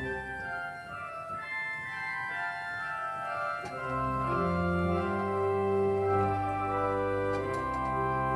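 Church organ played with slow, sustained chords. Deep pedal bass notes come in about four seconds in, and the music grows louder.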